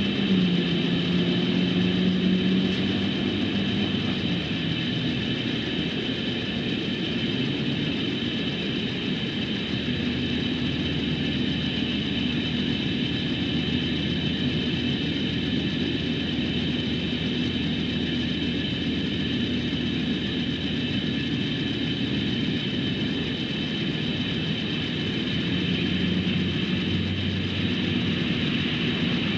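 Train running past, with a steady diesel engine drone and rumble whose low pitch shifts a little along the way.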